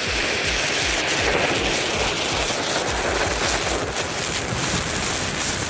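Electronic dance music with a steady kick drum about two beats a second, under a loud even rushing noise.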